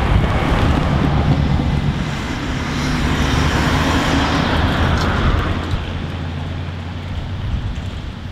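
Cars driving past close by: a vintage sedan's engine rumble, then a modern estate car towing an empty box trailer, its tyre and road noise swelling and fading away.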